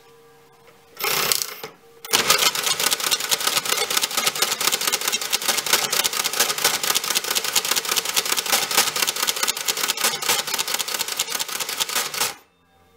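Hamann Automat V electro-mechanical calculator running on its motor: a short burst of noise about a second in, then a rapid, even mechanical clatter for about ten seconds as the machine calculates, stopping abruptly near the end.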